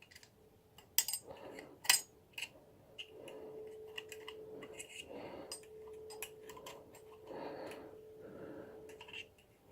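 Light metallic clicks and taps of a clutch plate being worked loose from a motorcycle clutch basket, a few sharp clicks early on then scattered small ticks. A faint steady hum sits behind from about three seconds in.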